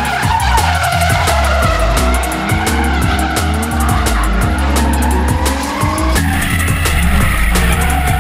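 Drift cars sliding sideways in a tandem run, with tyres squealing and engines revving, mixed under electronic music with a heavy steady beat.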